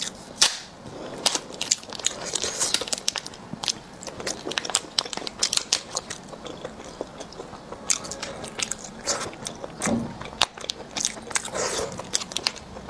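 Plastic snack packets crinkling and tearing as they are opened, mixed with close-up biting and chewing of small roasted eggs, full of irregular sharp crackles.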